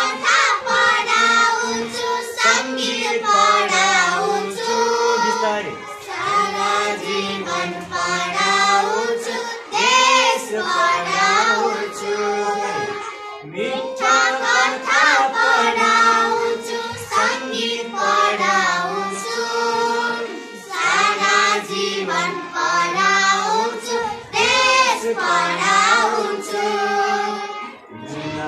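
Four young schoolgirls singing a song together, a slow melody in phrases with short breaths between them.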